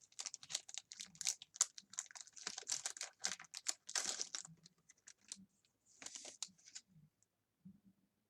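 Pokémon booster pack and cards being handled: quick crinkling of the foil wrapper and light clicking of cards, dense at first, thinning out about five seconds in and stopping about seven seconds in.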